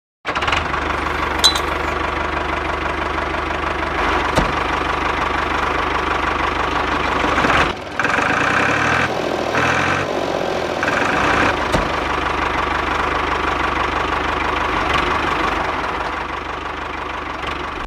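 Toy tractor running with a steady, engine-like sound while it pulls a small homemade drilling rig, with a brief dip about eight seconds in.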